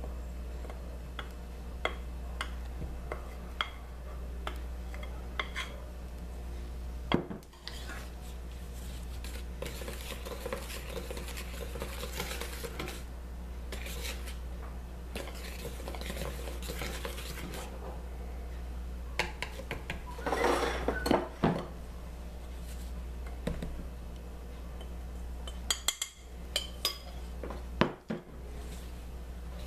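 A hand wire whisk clinking, knocking and scraping against the mixing bowl as flour is whisked into a creamed butter cake batter, with scattered knocks of utensils on the bowl. A steady low hum runs underneath.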